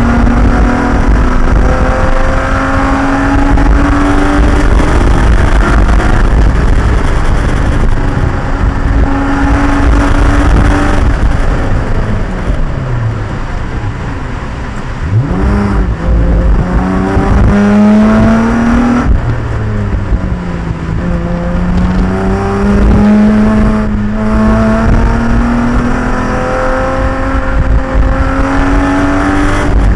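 Race car engine running hard through the gears: revs climb and drop back at each shift, fall away for a while around the middle, then pick up quickly and climb again.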